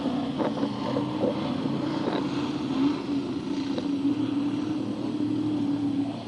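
V8 engines of winged BriSCA F1 stock cars running at steady revs as the cars cruise slowly around the track just after the finish.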